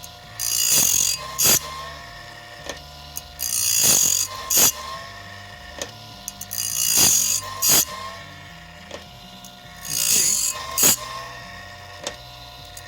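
SabreTooth automatic bandsaw blade sharpener working through a blade tooth by tooth: about every three seconds the grinding wheel makes a short hissing grind on a tooth, followed by a sharp mechanical click as the blade is stepped on to the next tooth. It is taking a light pass off the tooth tops to sharpen them.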